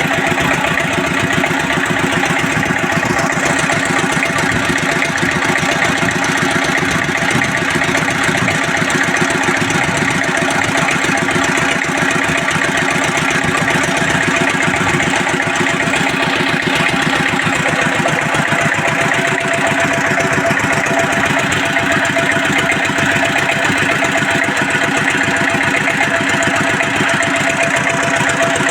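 Field Marshal 10 HP single-cylinder diesel engine driving a 7.5 kVA generator, running steadily with an even, fast beat.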